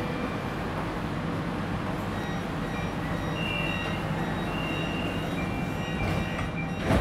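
Kuala Lumpur MRT train standing in the station with a steady hum, while short electronic door-warning tones sound in the middle as the doors close. A sharp, loud thump comes near the end.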